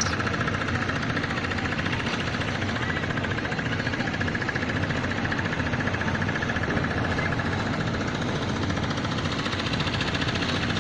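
An engine running steadily at an even speed, with a fast, regular beat.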